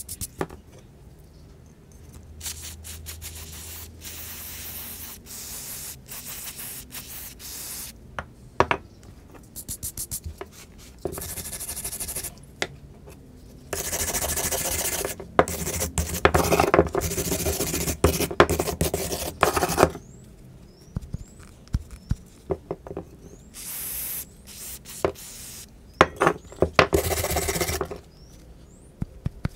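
Rusty steel pliers being scrubbed by hand with a wire brush and an abrasive block to remove rust, in bursts of quick back-and-forth strokes separated by short pauses.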